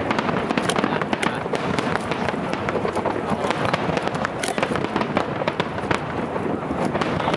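Aerial fireworks going off in quick succession: a dense run of sharp pops and bangs, several a second, over a steady rumble.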